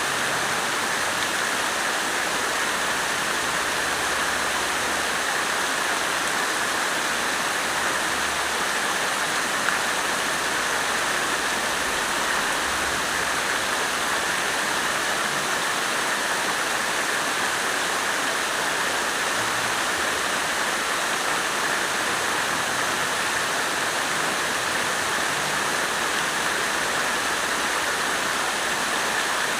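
Water fountain splashing in a steady, even rush.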